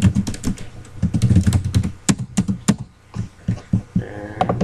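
Computer keyboard being typed on: quick, irregular runs of keystrokes with a short pause about three seconds in.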